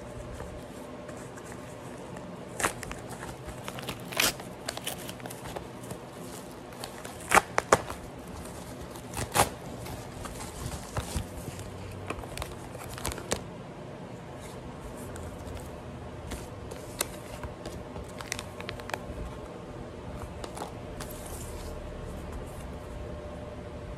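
Paper packaging being opened and handled: a padded mailer envelope and a small paper box rustling, crinkling and tearing in irregular spells, with the loudest tears about seven and nine seconds in.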